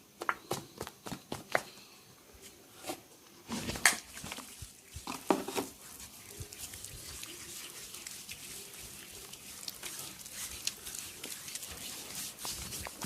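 Hands working on a client during a massage: a run of sharp clicks and smacks in the first half, the loudest about four and five and a half seconds in, then steady rubbing of hands over skin with small scattered clicks.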